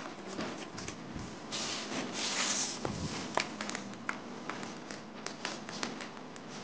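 Cardboard tablet box being opened by hand: the lid slides off with a papery rustle about two seconds in. It is followed by scattered light taps and clicks as fingers handle the box and the tissue-paper sleeve around the tablet.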